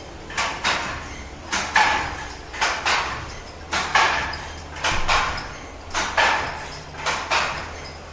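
Wooden handloom being worked: a double clack about once a second as the shuttle is thrown and the beater strikes the cloth, in a steady weaving rhythm.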